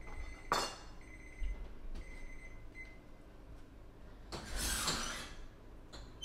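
Kitchen oven timer beeping with a high steady tone, stopping about three seconds in, with a sharp clink about half a second in. Then, about four and a half seconds in, a louder noisy rush lasting about a second as the oven is opened to check the baking cookies.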